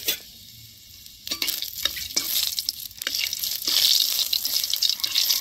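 Whole cumin, cloves, cardamom and a bay leaf sizzling in hot mustard oil in a karahi, with scattered crackles. The sizzle is faint for about the first second, then swells and stays loud.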